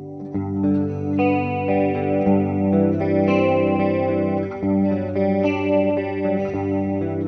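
Electric guitar played through a U-Sound Antarctic Chorus II stompbox, chords and notes ringing out with a chorus effect. A new chord is struck about a third of a second in, and more follow every second or so.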